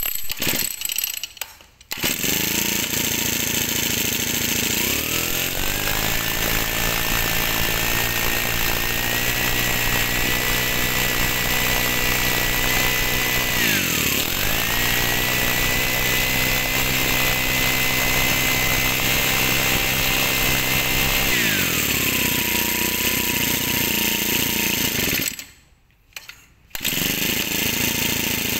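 Robin four-stroke brush cutter engine starting about two seconds in and idling, then revved high twice for several seconds each and dropped back to idle before being shut off, with one brief burst just after.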